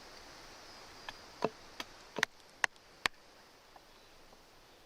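About six short, sharp knocks of a tool chopping into wood, irregularly spaced, between about one and three seconds in. Under them runs a steady, faint, high insect buzz.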